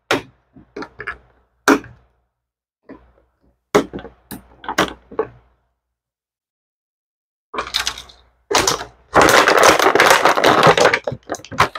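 Scissors snipping through clear plastic packaging in a series of sharp clicks and cuts. After a short pause, the plastic tray crinkles and crackles loudly for a few seconds as it is pulled open by hand.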